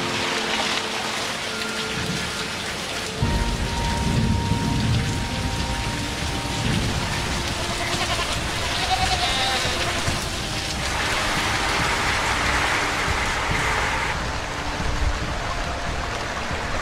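Steady rain falling and splashing, with a low rumble coming in about three seconds in. Goats bleat around the middle.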